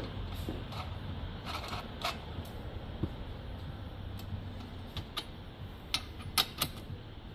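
Scattered light clicks and knocks of strimmer parts being handled during assembly, over a steady low hum. The sharpest clicks come in a quick cluster near the end.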